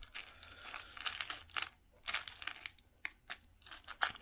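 Hands rummaging through a small metal tin of fishing tackle: hooks, beads and weights click and rattle against the tin, mixed with rustling, in a quick irregular run.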